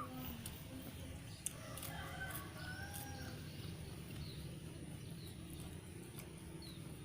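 A rooster crows once, faintly, about one and a half seconds in, its call rising and falling over a second or so. A few short high chirps follow, over a steady low rumble.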